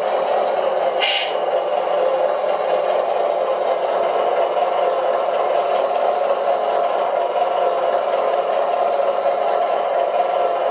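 Electric drive motor and gearbox of an RC MAZ 537 8x8 model truck whirring steadily as it drives slowly along a trailer deck, with a brief hiss about a second in.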